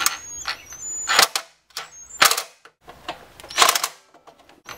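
Cordless drill-driver tightening the lug screws of a GFCI disconnect in several short bursts, its clutch clicking as each screw seats tight.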